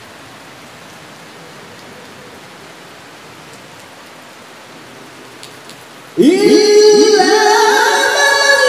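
Steady background hiss, then about six seconds in a Quran reciter's voice comes in loudly through the microphone, sliding up into a long held melodic note of chanted tilawah.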